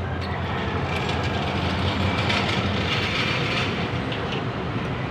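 Steady low mechanical hum and rumble, with a few light clicks of metal parts being handled about three to four seconds in.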